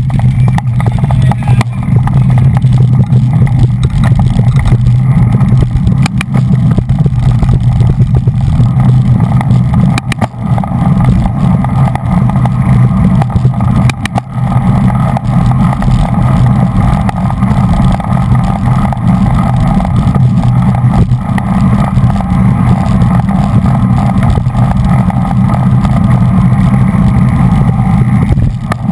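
Loud, steady wind rumble buffeting the microphone of a bike-mounted action camera riding at race speed in a bunch of road cyclists, with a couple of sharp knocks midway through.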